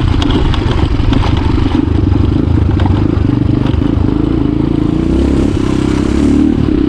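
Motorcycle engine running steadily while being ridden, its pitch wavering a little with the throttle.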